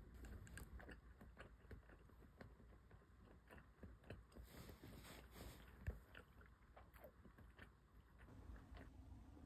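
Near silence with faint scattered small clicks and rustles, and one sharper tap about six seconds in. A low steady hum starts near the end.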